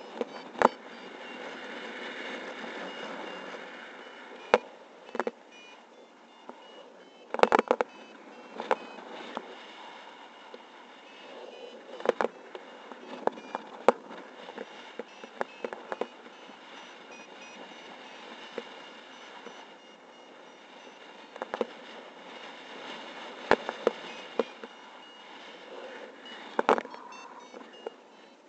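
Airflow rushing over a paraglider pilot's camera microphone in flight, broken by irregular sharp cracks and crackles of wind buffeting, with faint repeated high beeps behind.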